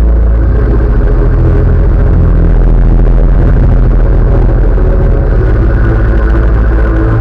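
Loud live electronic music from synthesizers: a heavy, deep bass drone with sustained tones above it, the bass starting to pulse rapidly about half a second in.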